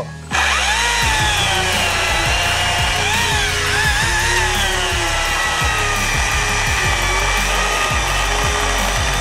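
STIHL MSA 300 battery chainsaw cutting steadily through an apple log at full power: the electric motor's whine and the chain's rasp through the wood. It starts about a third of a second in and runs without a break.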